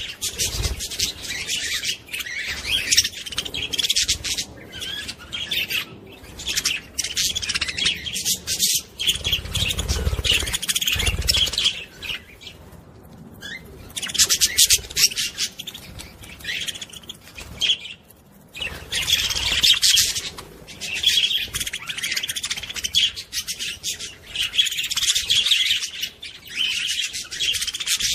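Budgerigar warbling: a fast, continuous chatter of chirps and clicks, broken by short pauses about 13 and 18 seconds in. There is a brief low rumble about ten seconds in.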